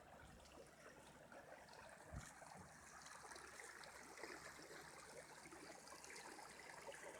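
Faint, steady trickle and rush of floodwater running along a sidewalk, with a brief low thump about two seconds in.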